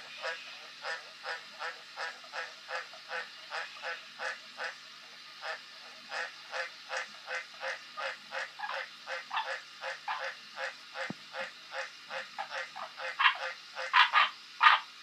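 Australian green tree frog (White's tree frog) calling: a long run of short croaks, about three a second, with a brief pause about five seconds in and the last three or four croaks much louder.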